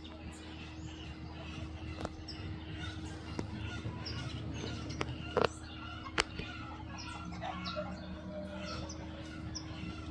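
Birds calling with many short chirps and clucks, over a steady low hum. Two sharp knocks stand out about five and six seconds in.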